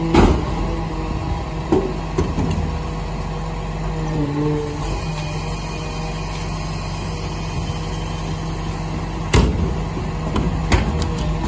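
Rear-loader garbage truck's engine running steadily, its pitch shifting briefly about four seconds in. Sharp knocks and clatter from the large plastic wheelie bin being taken off the bin lifter near the start, and again as the emptied bin is wheeled away near the end.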